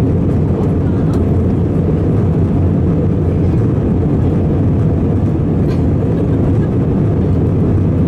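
Steady cabin noise inside an Airbus A320-216: a low, even rumble of its CFM56 engines and the airflow over the fuselage, heard from a window seat.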